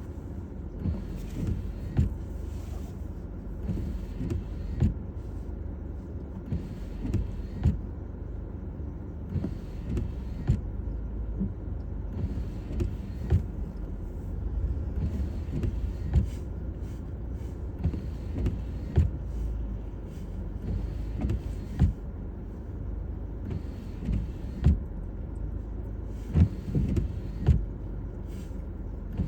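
Car driving on a snowy, icy road: a steady low rumble of tyres and engine, broken by frequent short knocks and bumps.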